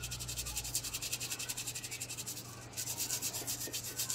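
Toothbrush scrubbing a toothpaste-coated silver ring: rapid back-and-forth bristle strokes, about eight a second, with a short break about two and a half seconds in.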